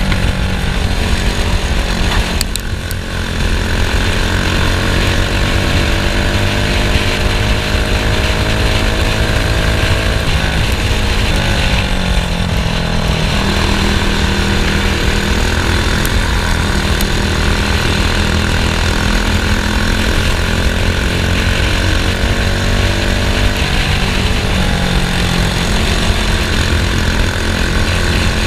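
Racing kart engine running hard. It drops off briefly about three seconds in, then climbs steadily in pitch for several seconds, and rises and falls again later as the kart lifts off for corners and accelerates out of them.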